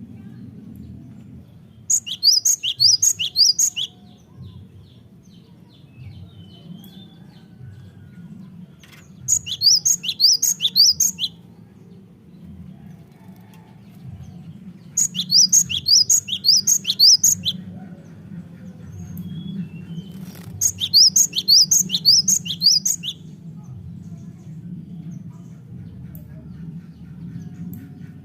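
Cinereous tit (gelatik batu) singing: four bursts of quick repeated high notes, each about two seconds long and some five seconds apart, over a steady low hum.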